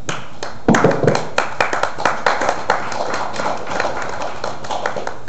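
Small audience clapping, the separate claps audible. It starts strongly just under a second in and thins out toward the end.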